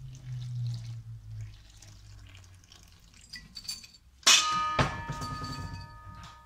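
Water poured from a glass carafe onto flour in a stainless-steel mixing bowl. About four seconds in comes a sharp metallic strike on the bowl, which rings on with several clear tones for over two seconds.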